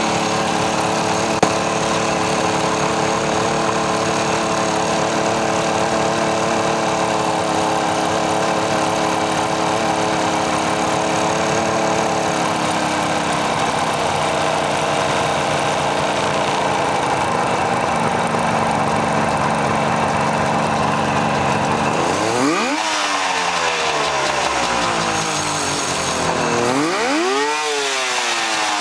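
1976 Suzuki GT750's liquid-cooled two-stroke three-cylinder engine idling steadily, freshly restored and just started. Near the end it is revved twice, the pitch climbing and falling back each time.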